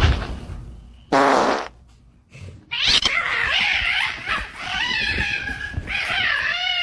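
A short buzzy burst, then a long, wavering, drawn-out cry from a pet animal that rises and falls in pitch and stops abruptly.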